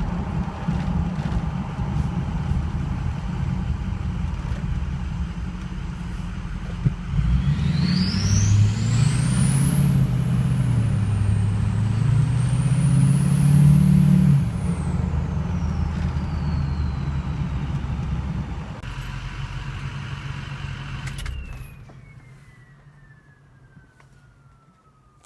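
Ford 6.0L Powerstroke diesel fitted with a 2003-type 6.0 VGT turbocharger, idling and then revved about seven seconds in; the turbo's high whistle climbs, dips, climbs again and falls away slowly as the revs come down. Near the end the engine stops and the turbo whistle winds down in a long falling tone as it spins down.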